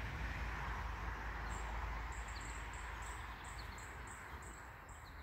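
Outdoor background noise that slowly fades. From about two seconds in, a high-pitched chirping call repeats about three times a second, with a few faint short chirps among it.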